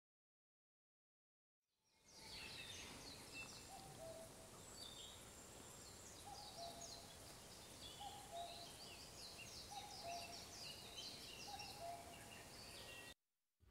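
Faint woodland birdsong, starting after about two seconds of silence: high chirping songs from small birds, with a low two-note call repeated about every two seconds.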